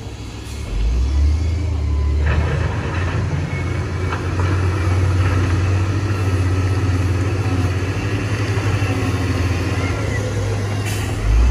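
Heavy diesel engine running, picking up revs about a second in and again at about two seconds, then running steadily.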